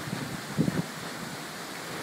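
Tropical storm wind blowing in a steady hiss, with gusts buffeting the microphone in low rumbles, strongest from about half a second to a second in.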